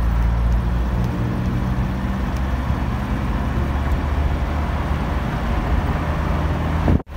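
Steady low engine and road rumble of a car driving, heard from inside the moving car.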